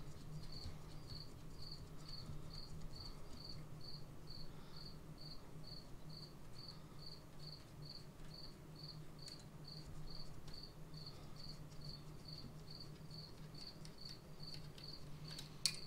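A cricket chirping steadily, about two chirps a second, over a low steady hum. A few faint clicks sound as hands work the carburetor, with a sharper click near the end.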